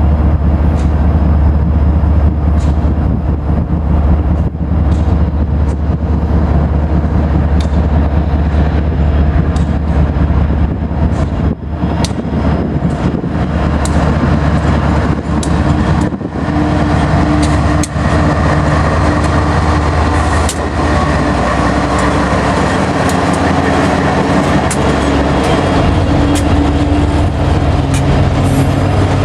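Freight train rolling by: a loud, steady low rumble with sharp irregular clicks from the wheels on the rails.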